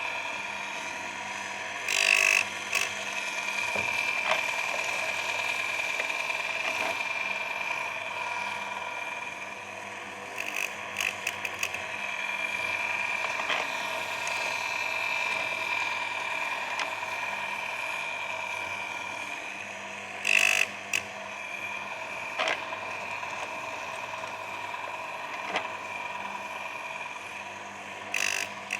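Baumr-AG electric chainsaw sharpener's motor running with a steady whine, interrupted by a few short, louder grinding bursts as the wheel touches the chain's cutter teeth.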